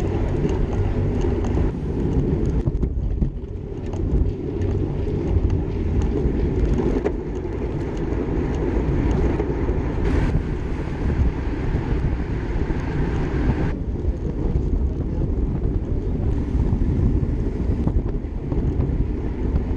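Wind rumbling heavily on the microphone of a camera riding on a racing bicycle in a moving pack of cyclists. The rumble shifts abruptly several times.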